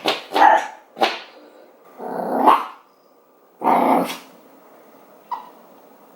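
A dog barking and growling: about five short barks in the first four seconds, one of them longer and rising in pitch, then a single click.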